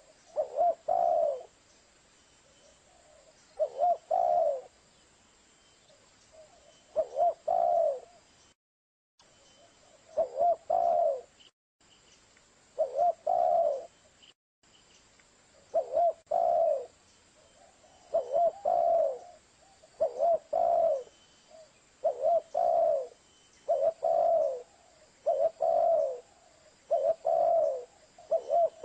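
Spotted dove cooing: short phrases of a few low coos, repeated every two to three seconds at first and closer together in the second half. It is a looped lure call for spotted doves, with a few abrupt cuts to silence between phrases.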